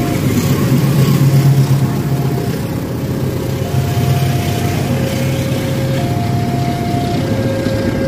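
Diesel-hauled passenger train passing a level crossing: a low locomotive engine rumble, loudest in the first two seconds, then steady wheel-and-rail noise from the passing coaches. Over it, the crossing's warning signal alternates between two tones, each held about a second.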